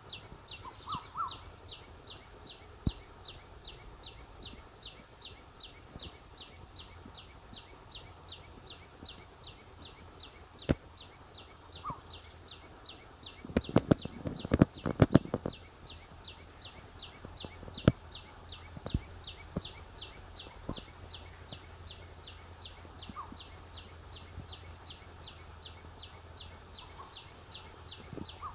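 A high chirp repeats steadily about three times a second, with a few short, lower calls now and then. About halfway through come a couple of seconds of loud knocks and rubbing from the phone being handled.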